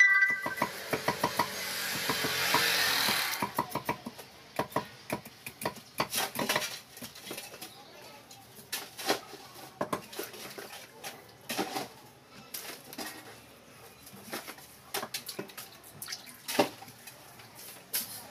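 Water pouring and splashing over a fish on a wooden chopping board for about three seconds, then irregular clicks and scrapes of a knife and hands working the wet fish and board.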